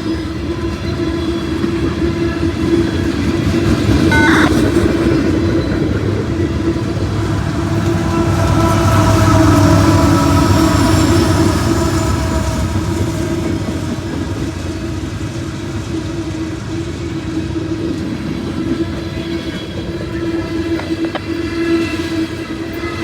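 Norfolk Southern freight train's cars rolling steadily past, wheels on rail making a continuous rumble with a steady low whine; it swells louder about a third of the way through.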